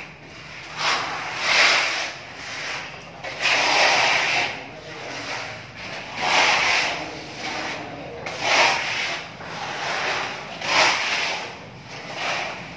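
Sandpaper rubbed by hand over a plastered wall in a series of rough, scratchy strokes, irregularly spaced about a second apart.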